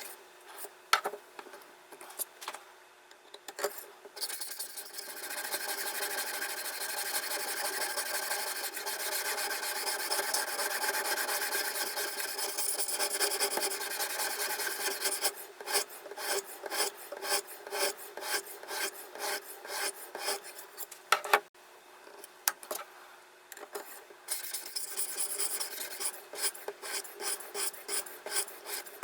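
Diamond sharpening stone rasping along the steel blade of a Victorinox folding knife on a guided sharpening system: a few clicks at first, a long continuous scrape through the middle, then quick back-and-forth strokes, about two a second.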